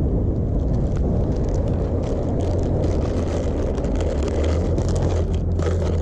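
Boat engine running with a steady low hum under wind noise on the microphone, with plastic bag crinkling near the end.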